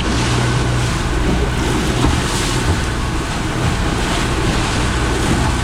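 Wind buffeting the microphone and waves rushing against a sailboat's hull as it beats into about 15 knots of wind, with a steady low hum underneath.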